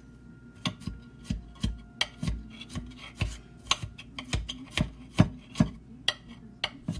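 Knife chopping celery fine on a glass plate: irregular sharp knocks of the blade against the glass, two or three a second, starting just under a second in.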